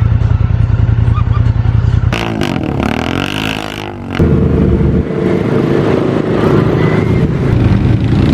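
Side-by-side off-road vehicle engine running hard. About two seconds in, it eases off for a couple of seconds with its pitch sweeping up and down, then comes back in loud again.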